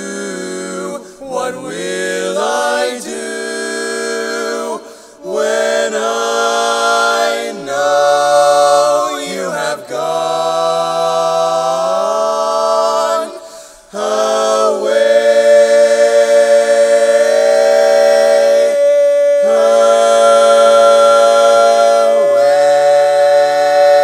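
Male barbershop quartet singing a cappella in four-part close harmony: several short sung phrases, then from about 15 s in a louder chord held long, shifting twice.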